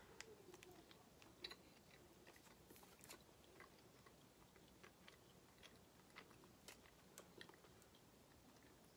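Faint chewing of a bite of soft white pepper-jack-style cheese: scattered quiet mouth clicks and smacks over near silence.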